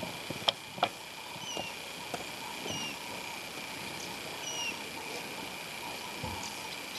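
Quiet bush ambience: a steady high-pitched hum, a bird's short down-slurred whistle repeated three times, and two sharp clicks in the first second.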